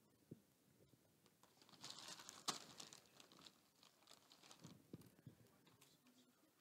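Faint handling noise: rustling and light clicks of small plastic molecule-model pieces being moved about on desks. It is busiest around two to three seconds in, with one sharper click in the middle of that, and a few soft knocks near the end.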